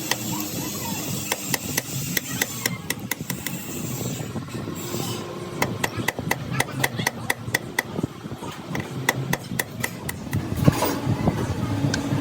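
Hammer striking metal over and over, about three to four blows a second, each with a short metallic ring, over a steady low hum.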